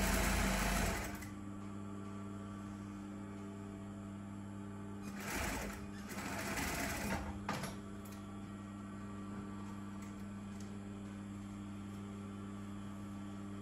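Industrial sewing machine stitching in short runs: one at the start, then again about five seconds in and from about six to seven and a half seconds. A steady hum sounds between the runs.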